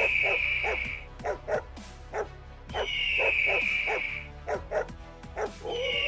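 A dog barking and yipping repeatedly in short sharp calls, over music with a long high tone that comes twice, about three seconds apart.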